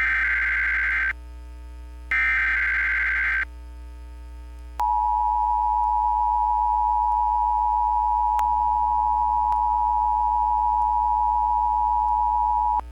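Emergency Alert System test signal: the last two of the three SAME header data bursts, each a buzzing digital warble lasting a little over a second, then the two-tone attention signal sounding steadily for about eight seconds and cutting off abruptly near the end. A steady low mains hum runs underneath.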